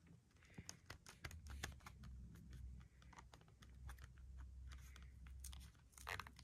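Faint, scattered clicks and crinkles of a paper plate and a tape-covered ornament being pressed and rocked with the fingers in wet paint.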